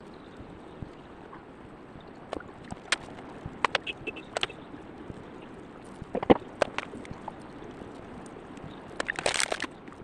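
Scattered light clicks and knocks from painting materials being handled, over a steady hiss, with a quick cluster of sharper clicks near the end.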